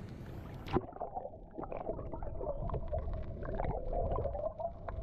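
Muffled underwater ambience: a steady low hum with many scattered clicks and crackles. It turns muffled about a second in, after a single click, when the microphone goes under water.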